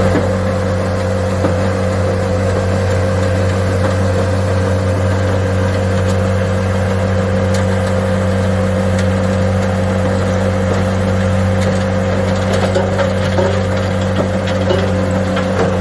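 CR450 crusher and excavator running steadily on site: a constant heavy diesel drone with a steady hum. Short knocks and clicks of rubble come here and there, more of them in the second half.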